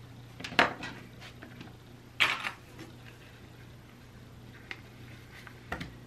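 A few sharp clacks and knocks of small hard items handled and set down on a cutting table, among them a rotary cutter laid down on the mat. The loudest come about half a second and two seconds in, with fainter ticks near the end, over a low steady hum.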